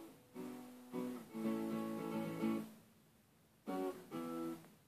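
Acoustic guitar playing chords in short phrases: notes ring for half a second to over a second, with a pause of about a second near the middle.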